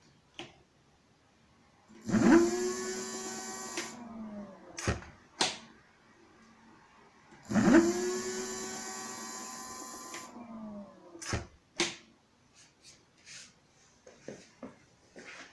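Kugoo M5 electric scooter's rear hub motor spinning the wheel up twice, about five seconds apart: each time a quick rising whine that then slowly falls as the wheel runs on for a couple of seconds, with no brake rubbing heard now that the caliper is adjusted. A few short clicks come between the spin-ups.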